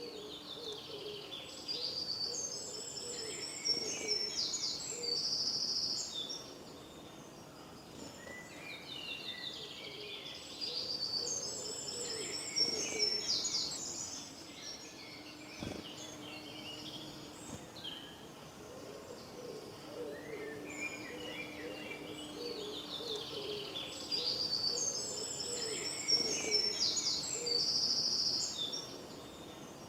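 Birds singing: high chirping phrases come in three bursts of a few seconds each, over a low steady hooting call.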